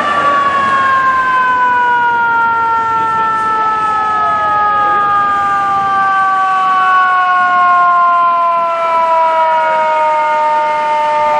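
Fire engine's mechanical siren, a Federal Q-type, winding down: one long, slowly falling tone that drops steadily in pitch. Fainter sliding siren tones from other emergency vehicles sound over it.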